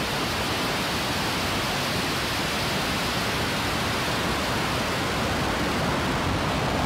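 SpaceX Starship SN8's three Raptor engines firing through liftoff and climb: a steady, dense rushing noise that grows slightly louder toward the end.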